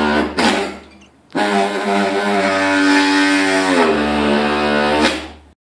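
BTB powered cold knife running with its blade buried in a windscreen's urethane adhesive bead: a loud, steady buzzing hum. It stops briefly about half a second in and starts again a second later. Near four seconds its pitch drops as the tool labours in the bead, and it ends suddenly near the end.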